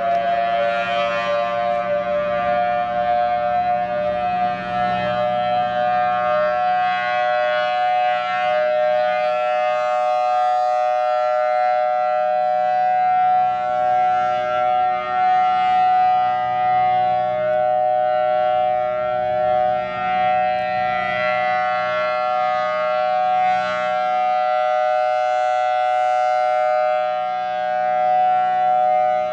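Federal Signal Thunderbolt 1000T outdoor warning siren sounding its monthly test, a loud steady two-tone chord that rises slightly in pitch over the first couple of seconds and then holds.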